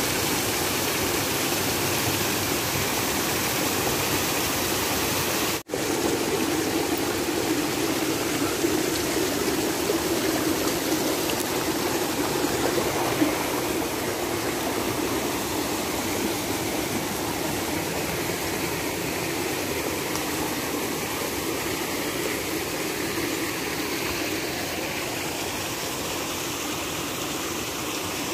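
Small rocky waterfall and stream: a steady rush of water over boulders. It cuts out for an instant about five seconds in, then runs on and grows a little fainter in the second half.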